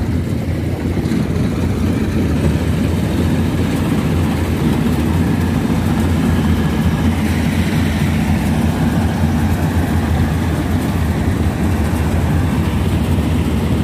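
Diesel engines of Yanmar rice combine harvesters running steadily at close range.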